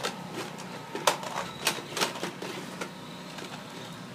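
Plastic toy dinosaurs knocking together in a play fight: a few irregular sharp clacks over the first three seconds.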